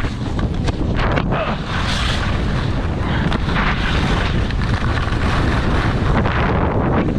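Wind buffeting the microphone of a camera carried by a skier moving fast downhill, a steady rushing roar heavy in the lows. Beneath it comes the scrape of skis carving and skidding over hard, chopped-up snow.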